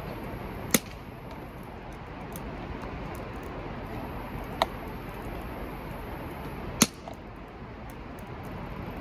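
Wood fire in a steel campfire ring crackling, with two loud sharp pops, about a second in and about two seconds before the end, and a softer pop between them, over a steady hiss.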